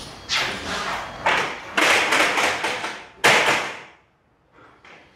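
Plasterboard being fixed to a ceiling: a run of about four loud knocks and thuds, each followed by a short scraping rush, then much quieter for the last second or so.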